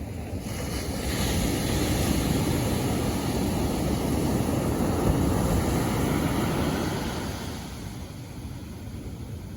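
Sea waves surging onto the shore, the rushing noise swelling about a second in and dying away near the end.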